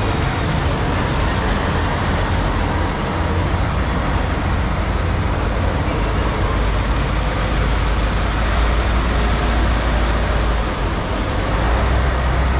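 Heavy military trucks carrying missile launchers driving past on a wet road: a steady diesel engine rumble with tyre hiss on the water. The rumble is strongest in the second half as a large launcher truck passes close.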